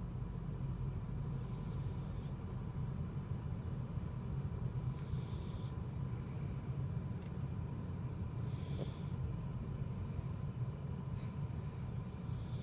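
A dog snoring: a hissing, raspy breath about every three and a half seconds, with a faint high whistle between breaths. Underneath is the steady low rumble of a car.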